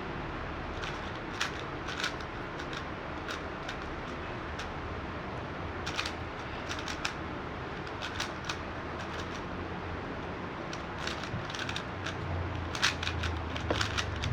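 Magnetic speed cube being turned by hand: irregular plastic clicks of the layers turning, coming thicker and faster near the end, over a steady background hiss.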